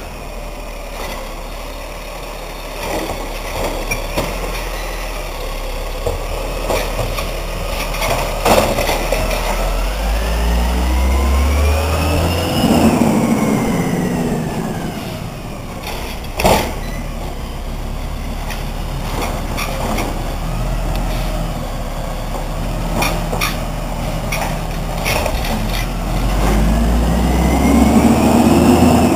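Peterbilt garbage truck with a Wayne Curbtender body: its diesel engine runs low, then revs up and falls back twice as the truck pulls ahead, the second rev near the end. A few sharp bangs come between, the loudest about a third and about halfway through.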